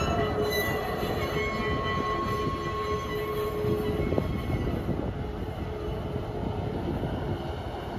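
Narrow-gauge sugarcane train, the diesel locomotive Tully-3 with loaded cane bins, rolling along the track and moving away: a steady rolling rumble with small knocks and a few thin steady high tones, slowly getting quieter.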